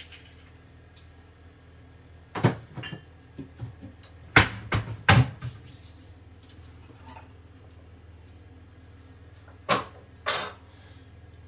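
Kitchen clatter: a handful of sharp knocks and clunks of dishes, bottles or cupboard doors being handled. The loudest two come about a second apart near the middle, and two more follow near the end.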